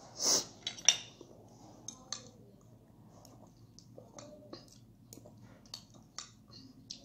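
Eating utensils clinking and scraping against dishware during a meal: a short rush of noise and one sharp clink in the first second, then scattered light clicks.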